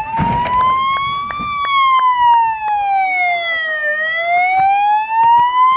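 Electronic wail siren: one tone sliding slowly up, then down, then up again in long even sweeps of a couple of seconds each. A loud noisy rush comes in the first half second, and faint regular clicks run beneath.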